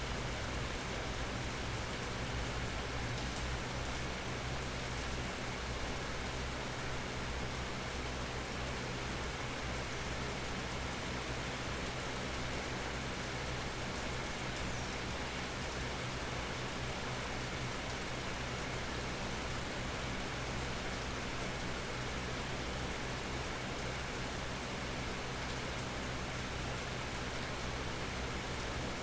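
Steady natural rain falling, heard from beneath a small almond tree, an even hiss that does not change.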